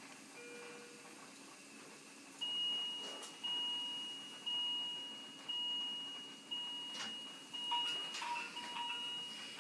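Bedside medical alarm in a neonatal intensive care unit beeping. A steady high tone with a lower tone beneath it starts about two seconds in and repeats about once a second, each beep fading away. A few clicks and rustles come near the end.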